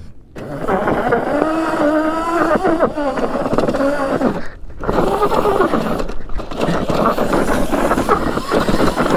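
Razor MX650 electric pit bike with a 72 V MY1020 motor kit pulling away on loose dirt: the motor whines, its pitch rising and falling with the throttle, as the rear wheel spins and sprays dirt and gravel. The sound drops briefly about four and a half seconds in, then picks up again.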